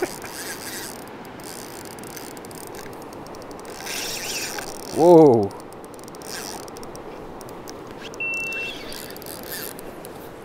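Shallow river running over stones with a steady rush, and a single short electronic beep about eight seconds in, the warning beep of a camera.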